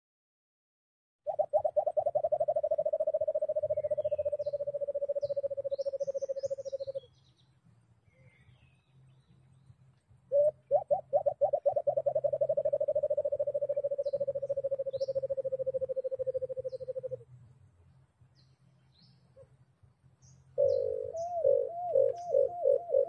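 White-eared brown dove song: a low hooting that starts as quick pulses and runs together into one long, slightly falling note of about six seconds, given twice. A third, pulsing call starts near the end. Small birds chirp faintly between the calls.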